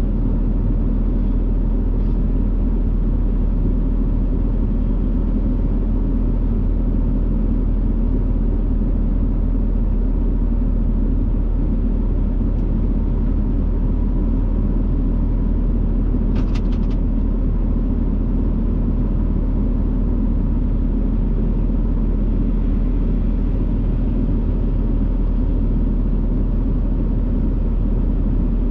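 Farm diesel engine running steadily under load with a constant low rumble. A brief cluster of sharp clicks about two-thirds of the way through.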